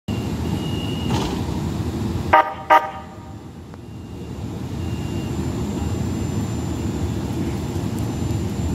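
Houston METRORail light rail train sounding two short horn toots about half a second apart, a little over two seconds in, over a steady low rumble: the signal that the train is about to move off. The rumble dips after the toots and then slowly builds as the train starts to pull away.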